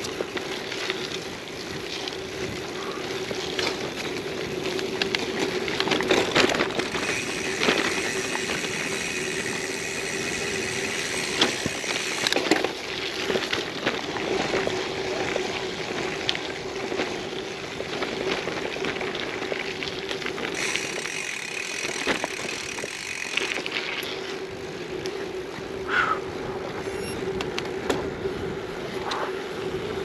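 Gravel bike being ridden over a rough, technical track: continuous tyre and riding noise with a steady hum, broken by frequent knocks and rattles as the bike hits bumps.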